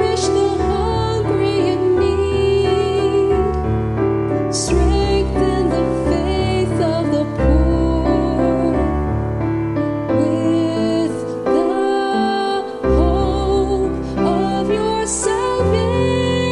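A woman singing a hymn solo, her voice gliding and held through long notes over piano accompaniment.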